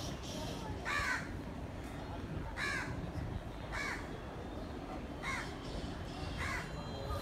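A crow cawing five times, the caws a second or more apart, over a steady low background rumble.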